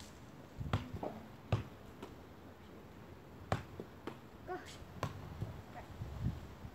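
A ball being juggled and dropped on a lawn: about five sharp thuds of the ball striking foot, hands or ground at uneven intervals, the last one near the end duller and heavier.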